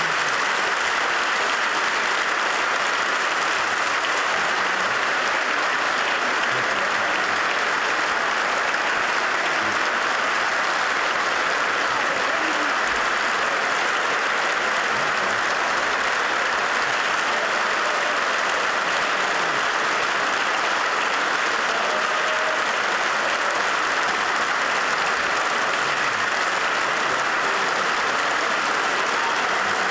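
Long, steady applause from a large assembly of parliamentarians clapping together, with faint voices mixed in.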